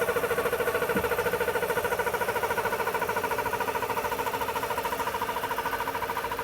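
Floating compressor running steadily, a continuous mechanical drone with a fast, even pulse.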